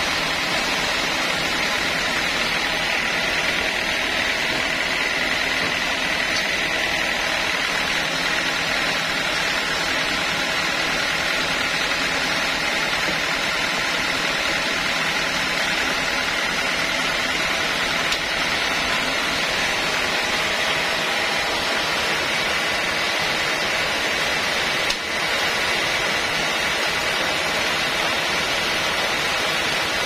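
Band sawmill running without cutting, a steady loud mechanical whir and hiss from its motor and moving blade.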